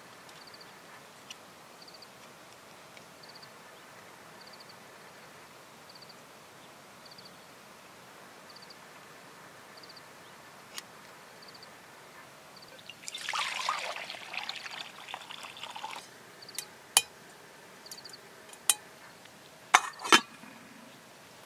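Small twig fire being lit in a folding steel camp stove, with a short rushing hiss a little past halfway. A few sharp clicks and clinks near the end as a steel kettle is handled over it.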